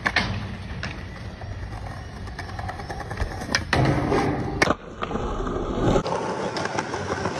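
Skateboard wheels rolling on smooth concrete, broken by several sharp clacks of the board striking the ground during flatground tricks. Near the end the rolling sound changes character as another clip begins.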